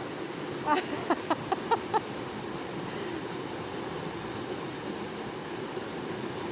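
Steady rush of flowing stream water, with a quick run of six or seven short high-pitched calls about a second in.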